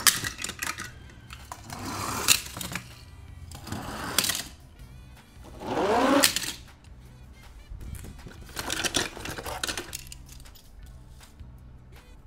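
Small toy cars rolling down a corrugated plastic board, their wheels rattling, in about five short runs a couple of seconds apart.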